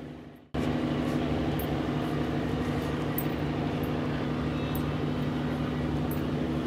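Steady hum of a city heard from high up: distant road traffic under a constant low machine drone, like air-conditioning plant. It cuts in sharply about half a second in after a brief fade.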